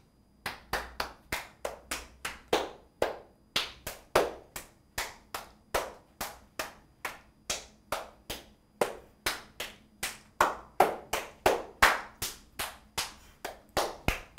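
Single hand claps passed one after another around a circle of people, about two to three a second. Each clap comes from a different person, so the loudness varies from clap to clap, and the claps come a little faster in the last few seconds.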